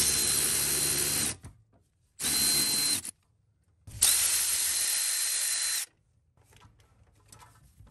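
Milwaukee cordless long-reach ratchet spinning out the 12 mm nuts that hold a secondary air switching valve to the valve cover, run in three bursts of about two, one and two seconds, each with a steady high motor whine. Faint clicks follow near the end.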